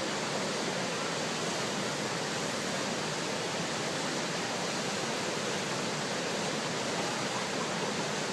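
Steady, even rush of whitewater pouring over the rocks of the Great Falls of the Potomac River.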